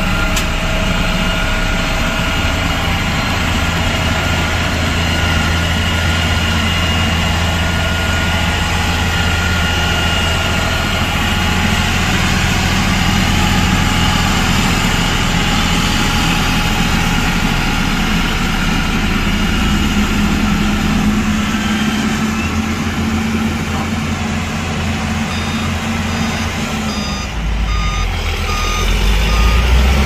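Heavy diesel earthmoving machinery running steadily. Over the last few seconds a reversing alarm beeps repeatedly, and the engine gets louder near the end.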